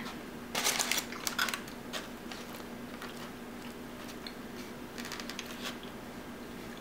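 Quiet clicks and scrapes of a metal fork working through food in foam takeout containers, in a cluster near the start and again about five seconds in, over a faint steady hum.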